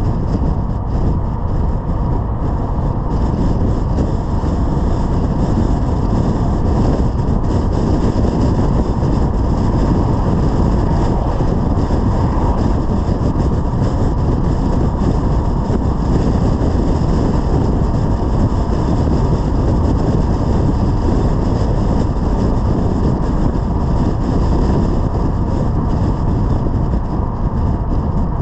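Steady rumble of wind and road noise from a BMW 330i driving at highway speed, picked up by a camera mounted outside on the car's hood.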